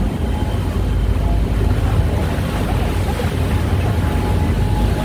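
Steady low rumble of a tour boat's engine under an even haze of wind and water noise.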